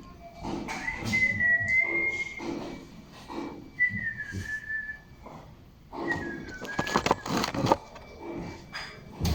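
A person whistling a tune in three short phrases, each a clear single note that steps and slides a little in pitch, with a quick run of knocks and clatter about seven seconds in.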